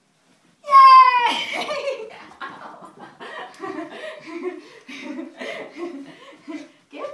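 A person's high, excited call falling slightly in pitch, followed by a run of short rhythmic bursts of laughter, about two a second.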